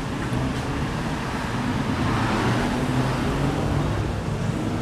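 Steady hum of city street traffic, with a low engine drone underneath.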